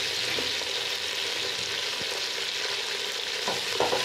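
Chopped greens (spinach, fenugreek, dill and coriander) frying in hot oil in an aluminium pot, giving a steady sizzling hiss. Near the end a wooden spatula stirs them, adding a few short scraping strokes against the pot.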